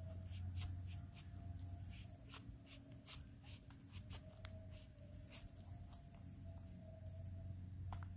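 Knife blade cutting a resinous polypore (Ischnoderma resinosum) off a rotting log: faint, irregular scratchy ticks as the blade works through the soft fungus where it joins the wood.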